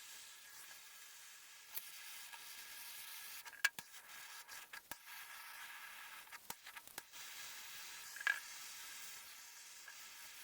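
Handheld torch flame hissing steadily as it scorches sanded wood, with a few faint sharp clicks along the way.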